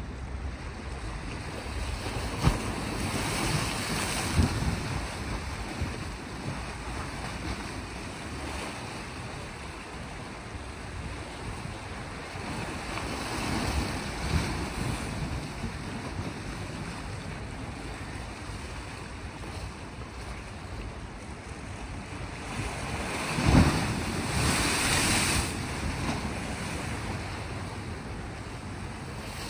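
Sea waves washing against a rocky shore, swelling in three surges: a few seconds in, around the middle and later on. Wind gusts on the microphone add low thumps.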